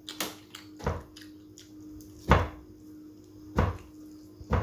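Noodles being slurped in quick mouthfuls: about five short slurps at uneven intervals, the loudest about two seconds in, over a faint steady hum.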